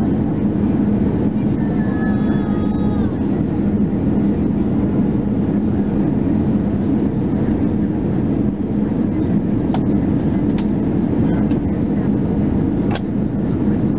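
Steady cabin noise of an Airbus A320-214 on approach, heard from a seat over the wing: the low hum of its CFM56 engines and airflow. A brief faint gliding tone comes about two seconds in, and a few light clicks come near the end.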